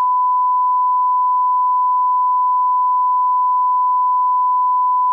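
Steady 1 kHz line-up test tone played with colour bars: one continuous, unwavering pitch.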